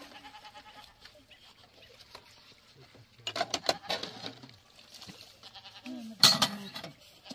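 Goat bleating several times in short pitched calls, with the loudest burst of sound near the end.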